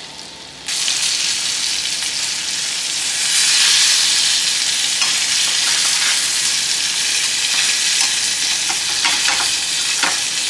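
Flour-coated chicken breasts sizzling loudly in hot olive oil in a frying pan. The sizzle starts abruptly just under a second in. Short clicks of metal tongs against the pan come in the second half as the pieces are turned.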